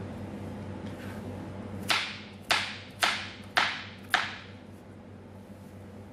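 Kitchen knife chopping through raw sweet potato onto a plastic cutting board: five sharp knocks about half a second apart, starting about two seconds in.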